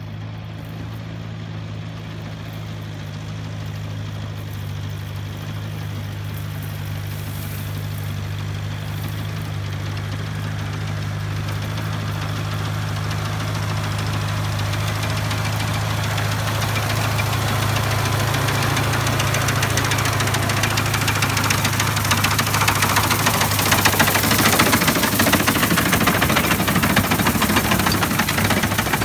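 Tractor engine running steadily as it pulls a McCormick reaper through standing wheat, growing louder as it approaches. From about halfway in, the clatter of the reaper's cutting and reel mechanism rises with it and is loudest a few seconds before the end.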